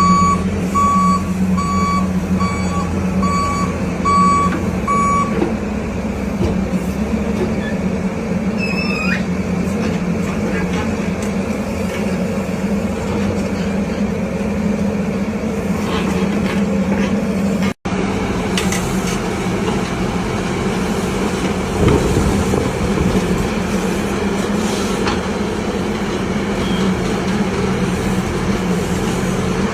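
Backhoe loader's diesel engine running steadily, with its reversing alarm beeping about six times over the first five seconds. A short squeal that rises and falls comes about nine seconds in.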